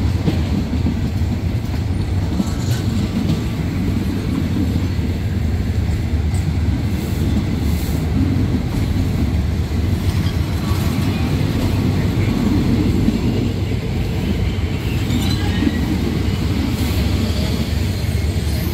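Passenger coaches of a State Railway of Thailand ordinary train rolling past at close range: a steady low rumble of wheels on rail, with a few light clicks and faint squeals now and then.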